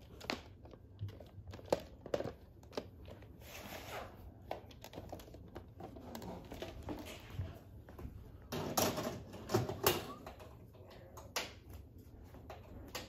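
Handling noise from a TV remote being picked up and its buttons pressed: scattered clicks and knocks with rustling, loudest in a cluster about two-thirds of the way through.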